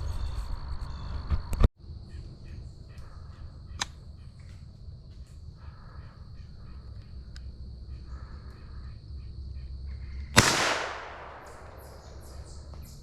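One .17 caliber rifle shot about three-quarters of the way through, a sharp crack that dies away in about a second. Before it there is quiet woodland background with a steady high whine and faint calls that sound like crows cawing.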